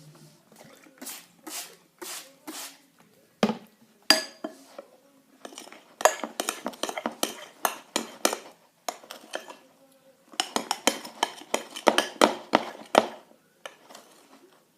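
A spoon stirring a thick slime mixture in a bowl, clicking and scraping against the bowl in quick runs of several clicks a second with short pauses between, as borax water is worked in to activate the slime.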